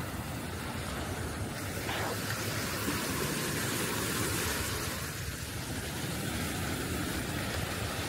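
Steady rushing wash of sea surf and wind, with a low rumble of wind on the microphone; it swells a little in the middle.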